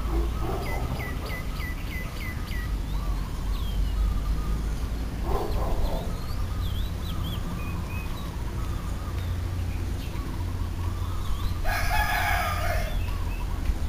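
A rooster crowing once, about twelve seconds in, over a steady low outdoor rumble. Small birds chirp now and then, with a quick run of about seven chirps about a second in.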